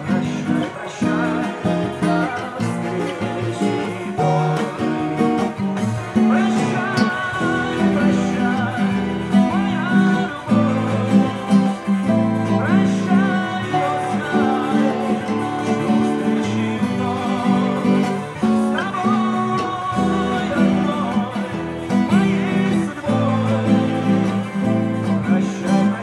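Acoustic guitar played continuously, chords picked and strummed in a steady rhythm.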